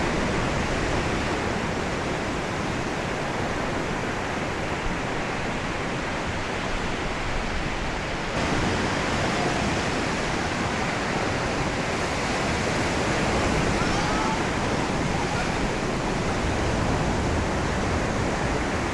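Sea waves washing onto a sandy beach: a steady rush of surf.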